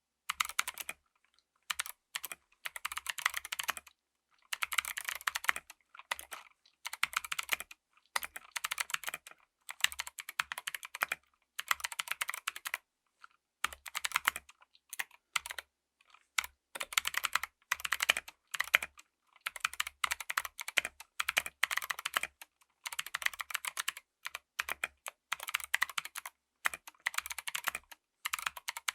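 Mechanical keyboard with Kailh Speed Bronze clicky switches being typed on: quick runs of crisp clicky keystrokes in bursts of a second or two, with short pauses between them.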